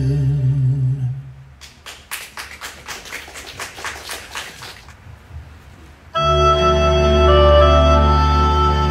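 A male singer's last held note, with vibrato, ends about a second in, followed by a few seconds of light audience applause. About six seconds in, instrumental music starts with sustained chords, the introduction to the next song.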